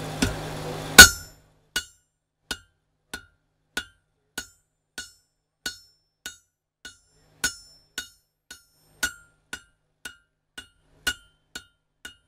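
Hand hammer striking hot coil-spring steel held over a hardy in the anvil, cutting off the axe's edge: about twenty ringing metal-on-metal blows, roughly two a second, the first one, about a second in, the loudest.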